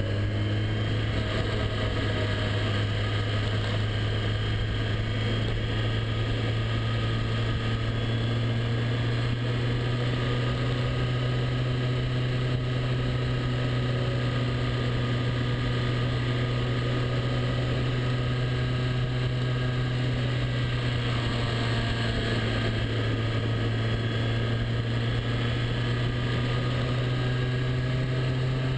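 Motorcycle engine running steadily at cruising revs while riding, with wind and road noise over it; the engine note rises slightly near the end as the bike picks up speed.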